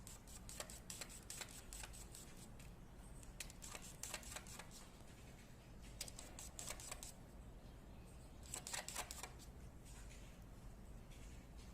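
Faint, irregular light clicks and taps in small clusters over low room noise.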